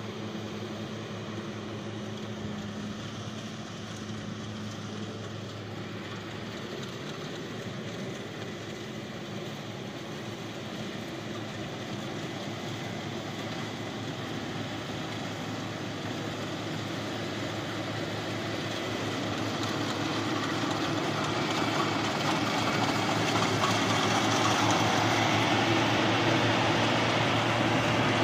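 Yanmar YH850 rice combine harvester's diesel engine running steadily under load as it cuts and threshes rice, with the clatter and whir of the cutter and threshing gear. It grows louder in the last third as the machine comes close.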